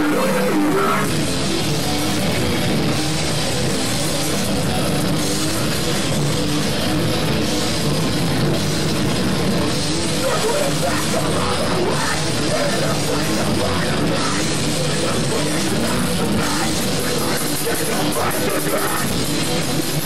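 Heavy metal band playing live: an electric guitar riff joined about a second in by drums, continuing as a dense, loud full-band wall of guitars and drums.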